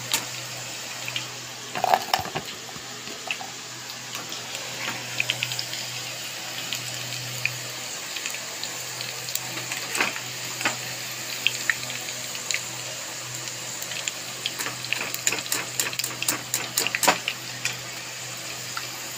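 Potato fries deep-frying in hot oil: a steady sizzle with scattered sharp crackles and pops.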